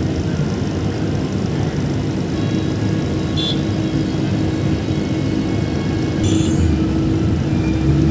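Road traffic at a busy intersection: motorcycle and scooter engines idling and pulling away, a dense steady rumble with a hum. Two short high-pitched chirps cut through, about three and a half seconds in and again a little after six seconds.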